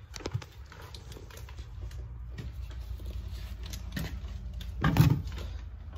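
Loaded hand truck carrying a subwoofer speaker box rolling over a concrete garage floor: a steady low rumble with scattered knocks and rattles, and a loud thump about five seconds in.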